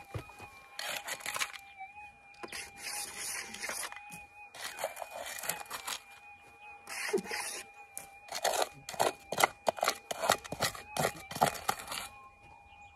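Hand digging in gravelly, quartzy dirt with a small hand pick: a few bursts of scraping and scratching, then a quick run of sharp knocks and chops in the second half. A faint steady electronic tone from the metal detector runs underneath.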